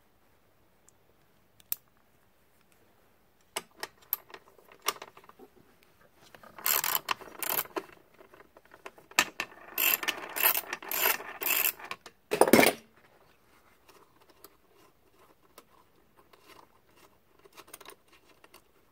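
Clicking, rattling and rubbing of metal parts as a hand works at the throttle and homemade aluminium throttle clip of a 1986 Evinrude 2 hp outboard motor. The sound comes in scattered clicks, then dense clusters of rattling, with one loud knock a little past the middle.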